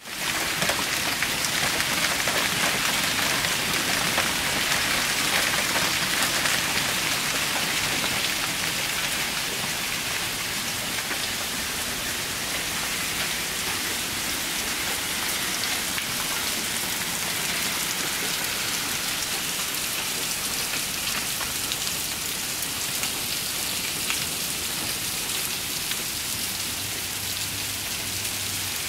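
Hail and heavy rain pelting down in a dense, steady patter of many small sharp hits. Heaviest over the first eight seconds or so, then easing slightly.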